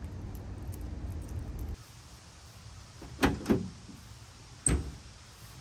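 Pickup truck tailgate being opened: two knocks as the latch releases, then about a second later a sharp metallic clank with a brief ring as the tailgate drops onto its support cables. Before that, a steady low rumble that stops abruptly about two seconds in.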